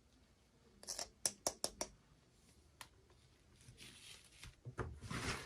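Toy packaging being handled: a quick run of five or six sharp plastic clicks about a second in, single clicks later, and a brief rustle near the end.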